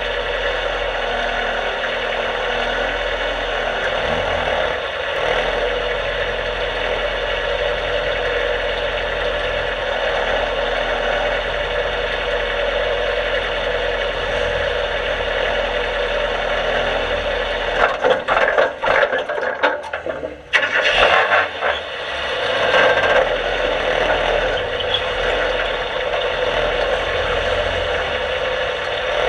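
Race car engine idling steadily, heard from inside the caged cockpit. A bit more than halfway through, a few seconds of choppy knocks and a brief drop break in before the steady running returns.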